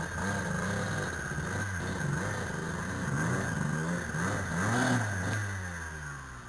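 Dirt bike engine revving up and down over and over at low speed, loudest about five seconds in, then easing off near the end.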